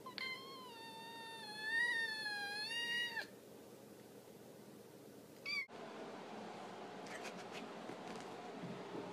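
A cat giving one long, drawn-out meow of about three seconds with a wavering pitch, then a brief second meow about five and a half seconds in.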